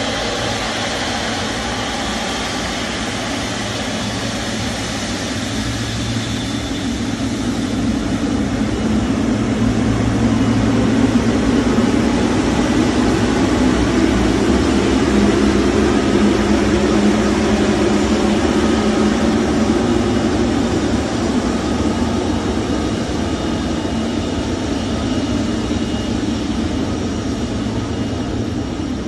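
Boeing 777F freighter's twin GE90 turbofan engines running at taxi power as the jet rolls past. A steady rumble with a thin high fan whine at first, growing louder about eight seconds in and easing off near the end.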